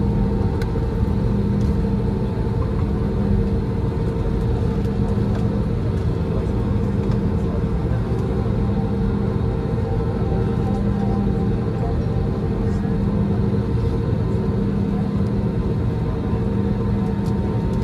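Inside the cabin of an Airbus A320-family airliner taxiing: the jet engines' steady hum at taxi power, a low rumble with several held tones and no rise in pitch or level.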